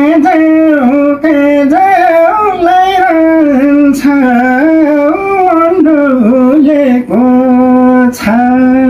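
A man singing a Nepali folk song (lok geet) in a high voice, a long ornamented line that winds up and down, then settles into long held notes near the end.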